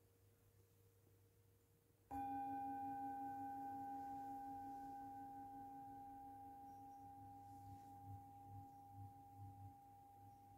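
A metal singing bowl is struck once about two seconds in. It rings with one clear main tone, a few fainter higher overtones and a lower tone that pulses, then slowly fades.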